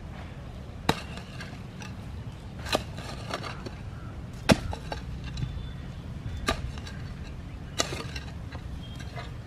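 A mammoty (a heavy hoe) chopping into the soil, about six sharp strikes spaced one to two seconds apart, the loudest about halfway through.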